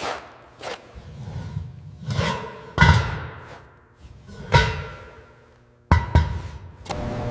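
An irregular series of sharp knocks and bangs, each with a short ringing after it. The loudest come about three, four and a half and six seconds in.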